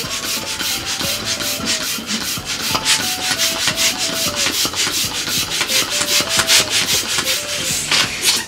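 Rapid, rhythmic scraping, about five short strokes a second, over a simple background melody.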